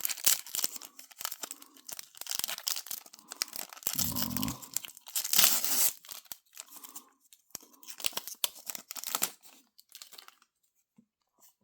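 Trading-card pack wrapper being torn open and crinkled by hand: irregular crackling and tearing, loudest about halfway through, dying down near the end.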